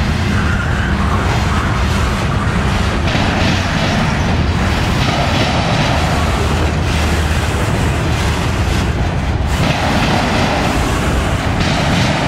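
Freight train cars rolling past at close range: covered hoppers and then autorack cars, their wheels rumbling steadily on the rails.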